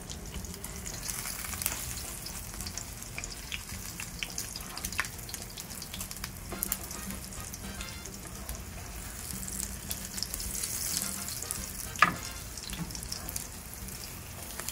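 Egg-battered dried-fish patties frying in hot oil in a pan: a steady crackling sizzle with small clicks and scrapes as they are turned with a spatula and fork. One sharp clack stands out late on.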